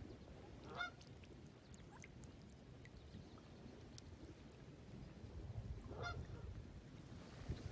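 Two short calls from a waterfowl, one about a second in and another near six seconds, over a faint low rumble.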